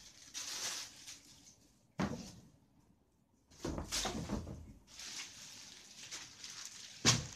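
Plastic wrapping rustling as a wrapped backpack is handled, with a sharp knock about two seconds in and a louder one near the end.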